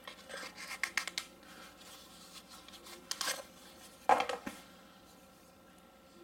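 Hands handling a fixed-blade knife over a table: a series of short rustling and scraping handling noises, the loudest about four seconds in.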